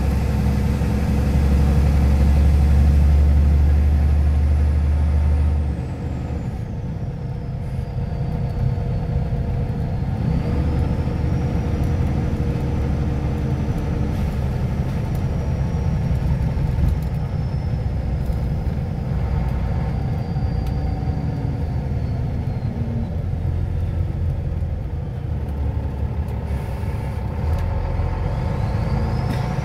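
Scania OmniLink I CL94UA city bus heard from inside the cabin, its engine rumbling heavily for the first few seconds and then settling to a lighter steady drone as it drives on. A thin high whine glides down and up in pitch over the engine sound and rises again near the end.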